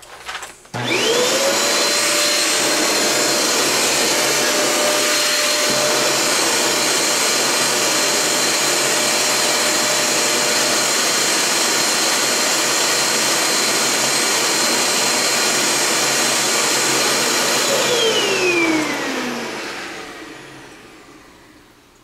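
Housmile handheld UV-C vacuum cleaner switched on with a click, its motor spinning up within a second to a steady high whine over rushing air. It runs steadily, then is switched off near the end and winds down with a falling whine.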